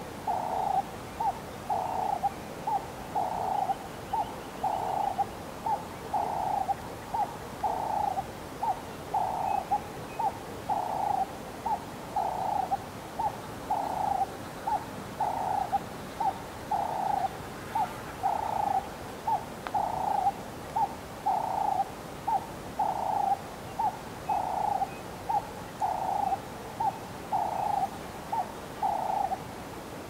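A bird calling over and over in an even rhythm: a short note followed by a longer one, about once every one and a half seconds, stopping shortly before the end.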